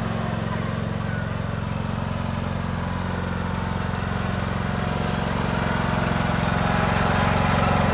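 Craftsman riding lawn mower's engine running steadily as the mower drives along, growing louder over the last few seconds as it comes closer.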